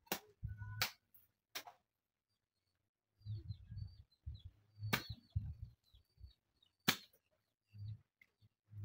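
A hand hoe chopping into soil: a series of sharp strikes at uneven intervals, with duller thuds between them. Birds chirp faintly in the middle.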